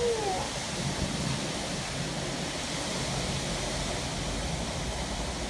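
Storm wind rushing steadily through trees in strong gusts.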